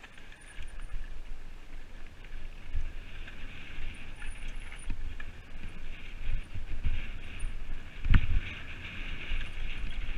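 Mountain bike riding down a dirt singletrack: uneven rumble and rattle of tyres and frame over the rough trail, with wind on the microphone. A sharp knock comes about eight seconds in, as the bike hits a bump.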